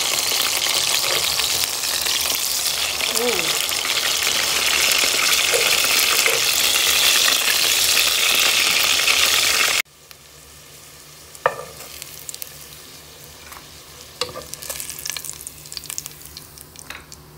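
Burger patties sizzling loudly in hot frying oil in a pot. About ten seconds in the sizzle cuts off suddenly, leaving a much quieter hiss with a few sharp clicks of metal tongs against the pot as the patties are turned and lifted out.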